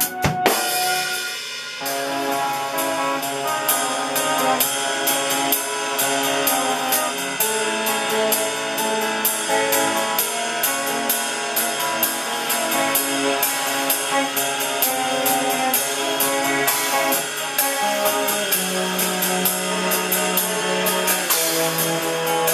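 Electric guitar and Pearl drum kit playing together live. A loud hit comes about half a second in, the level drops briefly, then a steady beat with regular cymbal strokes runs under held guitar notes.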